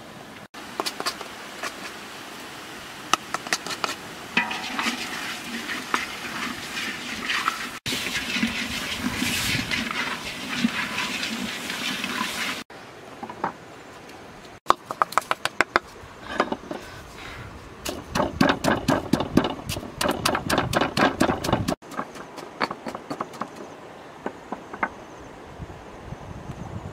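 Food being handled in woven baskets, with a stretch of splashing water, then a pestle knocking in a stone mortar at about four strokes a second as chilies are pounded into sauce.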